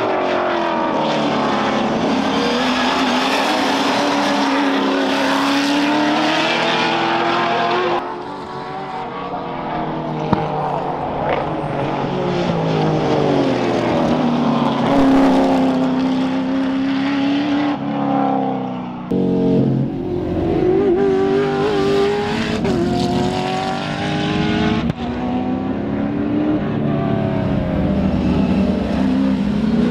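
Sports sedan race cars at racing speed, their engines rising and falling in pitch through gear changes and corners. There is a single sharp crack about ten seconds in.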